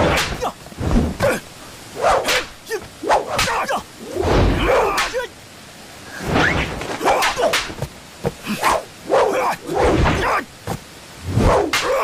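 Sword swung through the air in a run of sharp whooshes, about one a second: martial-arts sword practice sound effects.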